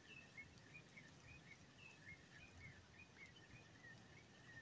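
Near silence, with a bird's faint short chirps repeating about three times a second.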